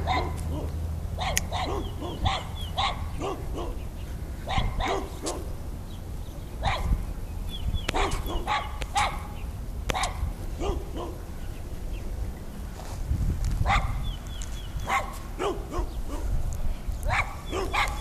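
Dog barking repeatedly, often two or three barks at a time, over a low steady rumble.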